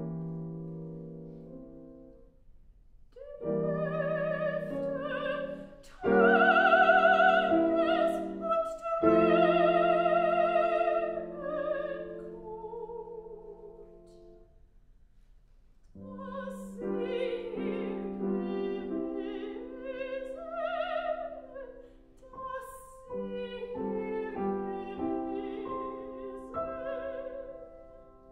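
A soprano singing a German art song with piano accompaniment. A piano chord opens, and the voice enters with a wide vibrato about three seconds in. It is loudest between about six and twelve seconds, drops away briefly near the middle, then voice and piano take up again.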